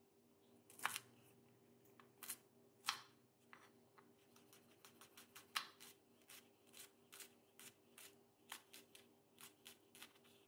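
Kitchen knife chopping green onion bulbs on a bamboo cutting board: a few sharp knocks, then an even run of chops, about two or three a second, from about four seconds in.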